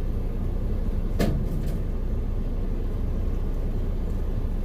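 Car engine idling, a steady low rumble heard from inside the cabin, with a single sharp click about a second in.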